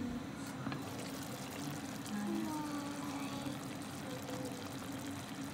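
Sukiyaki broth with udon simmering in a tabletop hot pot: a steady bubbling, with faint voices in the background.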